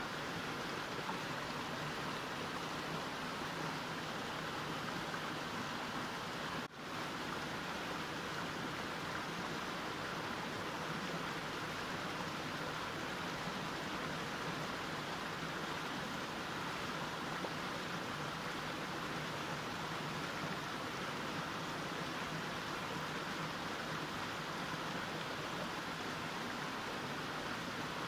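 Mountain stream flowing, a steady, even rush of water with no change, except for a momentary dip in level about seven seconds in.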